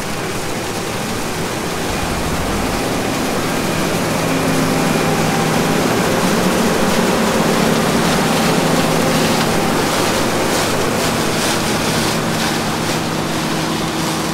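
John Deere 9560 STS combine harvesting soybeans, its engine and threshing machinery running in a steady loud roar with a low engine hum. It grows louder as the machine passes close by around the middle and eases off a little near the end as it pulls away.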